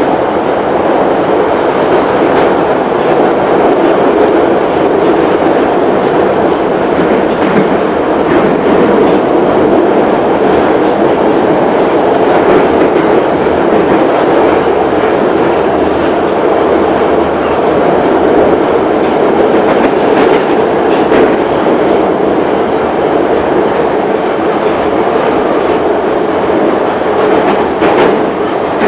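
Metrowagonmash 81-717.6/714.6 metro train running at speed through a tunnel, heard from inside the car: a loud, steady rumble of wheels and running gear, with occasional clicks over the rails.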